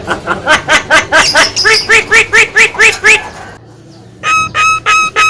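Javan myna (jalak kebo) calling loudly in a fast run of repeated harsh, ringing notes, about five a second. After about three seconds comes a short pause, then a new series of evenly spaced, clearer ringing notes starts near the end.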